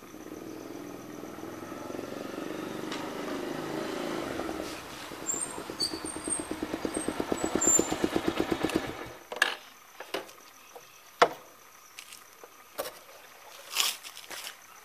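Bajaj Pulsar 150's single-cylinder engine with a beer can fitted over the exhaust tip as a home-made loud-exhaust mod: the bike rides up and slows, then idles with a fast, uneven, popping exhaust beat. The engine is switched off about nine seconds in, and a few sharp knocks follow.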